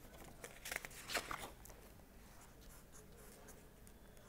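Pen writing on paper: a few quick scratchy strokes in the first second and a half, then fainter light ticks.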